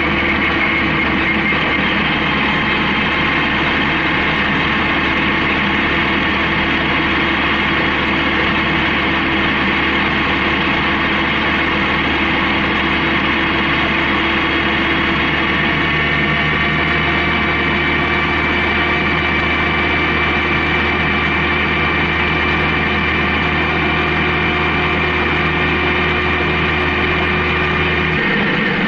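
Honda CB750K's inline-four engine running at a steady speed on the move, a constant hum with sustained tones that shift slightly about halfway through.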